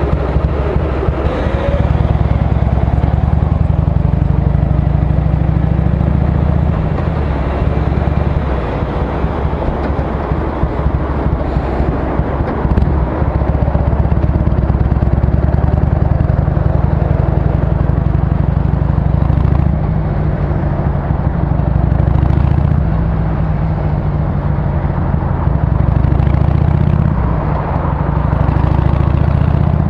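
Harley-Davidson Sportster 883's air-cooled V-twin running on the road, heard from the rider's seat. The exhaust note changes several times as the throttle opens and closes.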